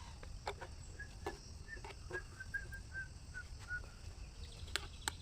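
A bird calling a quick run of about a dozen short chirps over roughly three seconds, with scattered clicks and knocks around it.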